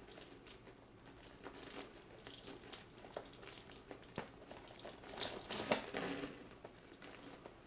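Flour pouring in a heavy stream from a large paper bag, the bag crinkling and rustling as it is held up and tipped, with a louder rustle about five to six seconds in.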